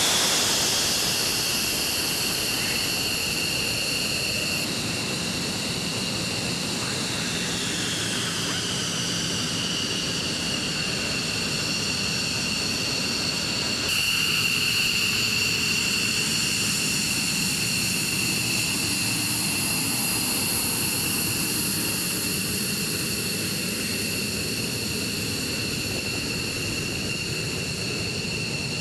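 F-15E Strike Eagle twin jet engines running at taxi power, a steady high turbine whine over a rushing hiss. The whine falls in pitch as a jet moves past just after the start and again about a third of the way in, and the sound gets louder about halfway through.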